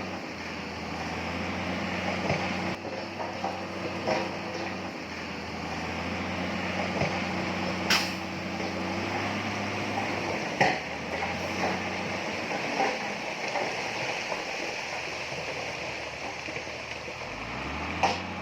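Diesel engine of a heavy earthmoving machine running steadily, with three sharp knocks, and the engine note rising near the end as it is revved.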